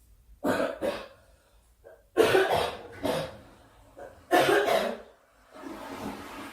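A girl coughing: three separate coughing fits about two seconds apart, each starting abruptly, followed by a softer, breathy stretch near the end.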